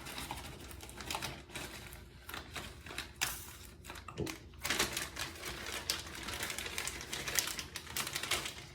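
Small packs of double-edge razor blades and their packaging being handled and sorted, making irregular light clicks, taps and rustles.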